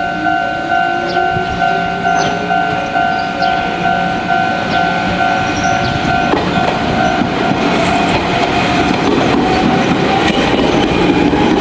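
Level-crossing electronic warning bell ringing in its old standard tone, a two-note chime pulsing about one and a half times a second. About halfway through, a Jōmō Electric Railway train runs over the crossing, its wheels clattering on the rails with a rising whine.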